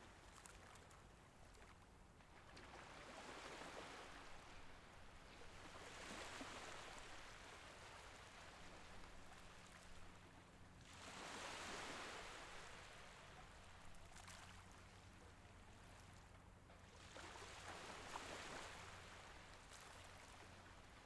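Faint, gentle Mediterranean Sea waves washing in, a soft hiss that swells and fades several times, the biggest surge about halfway through. A faint steady low hum lies underneath.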